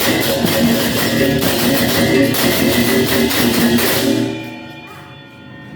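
Balinese baleganjur gamelan playing loudly, with crashing ceng-ceng cymbals, drums and gong tones, then dying away about four seconds in.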